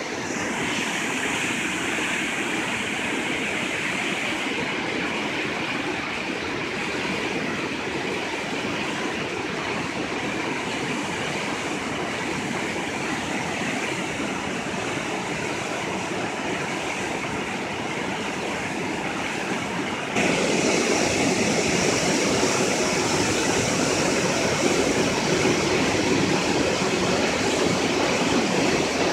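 Water pouring out of an open dam flood gate and churning into the river below, a steady rushing noise. It gets louder and fuller about twenty seconds in.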